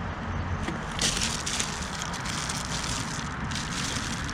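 Crackly rustling noise made of many small clicks, growing louder about a second in and dipping briefly near the end.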